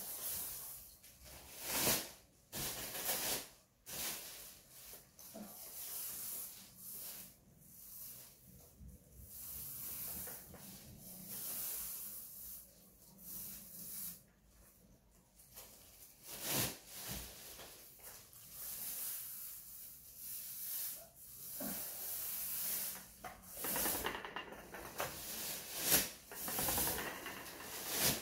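Paint being worked onto a ceiling: an irregular run of rubbing, hissing strokes, with a few knocks among them.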